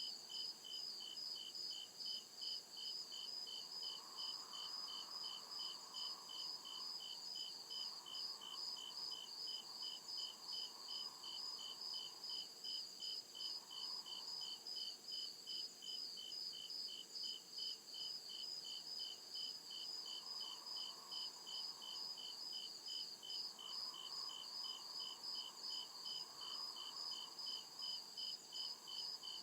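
Crickets chirping at night in a steady, even rhythm of several chirps a second, over a continuous higher insect hiss. A faint lower hum comes and goes behind them.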